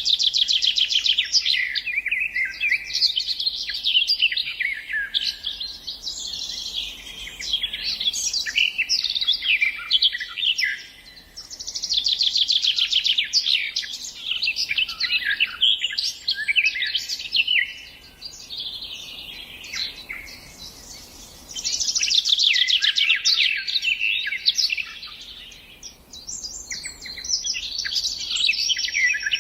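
Songbird song: loud phrases of rapid trills and repeated notes, each a few seconds long, separated by brief pauses.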